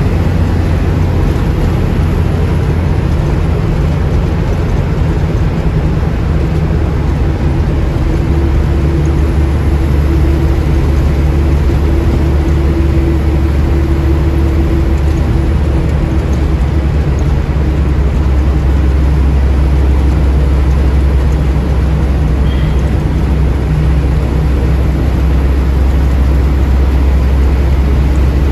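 Steady low drone of a moving road vehicle: engine and road noise, unbroken throughout.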